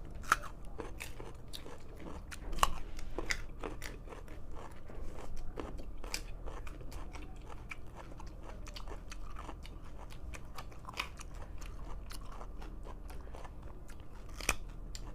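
Two people biting into and chewing raw carrots: a run of crisp, irregular crunches, with a louder bite just after the start and another near the end. The carrots are very hard.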